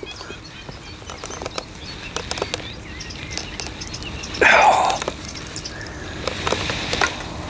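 Birds chirping faintly, with small clicks and rustles of fishing tackle being handled and a short, louder burst of noise about halfway through as the angler works his landing net at the water's edge.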